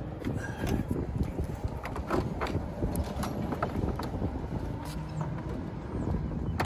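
Scattered light clicks and taps of a car's plastic front bumper cover and headlight trim being handled and pressed into place, over a steady low rumble of outdoor wind on the microphone.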